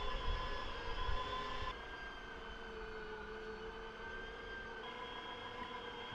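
Electric meat grinder running steadily while boiled tripe is pushed through it, a motor whine whose pitch shifts a couple of times. There are low knocks in the first couple of seconds.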